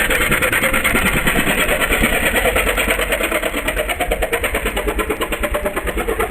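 Katinting longtail boat engine running steadily at speed, with a fast, even pulsing beat; it grows slightly fainter over the last couple of seconds.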